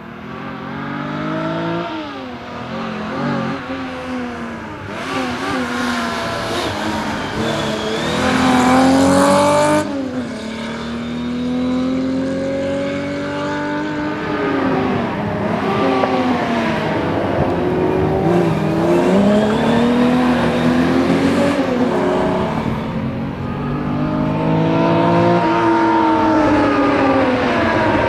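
1961 Ford Zephyr's straight-six engine under hard acceleration in rally driving, its pitch climbing again and again and dropping back at each gear change or lift.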